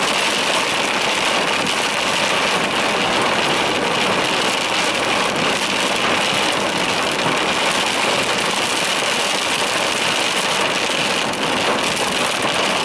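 Torrential rain pouring down, a loud, steady, dense hiss that never lets up.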